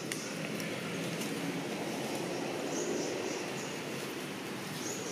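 Steady outdoor background rumble, like distant traffic, with a few faint short high chirps and light clicks.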